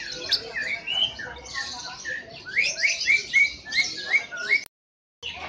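Caged cucak ijo (green leafbird) singing a fast, busy song of whistled sweeping notes. In the second half it becomes a run of short up-and-down phrases at about four a second. The sound cuts out abruptly for half a second near the end.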